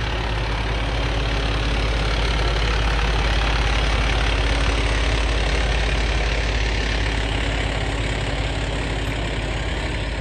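Diesel engine of a fire department tower ladder truck running with a steady low hum as the truck drives past close by. It grows louder toward the middle and eases slightly near the end.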